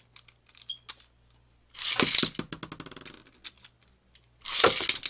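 A Beyblade spinning top is launched with a sharp ripping whoosh from its launcher about two seconds in, followed by a quick run of clicks and rattles that thin out as the top skids and knocks around the plastic stadium. A second, similar rip comes near the end.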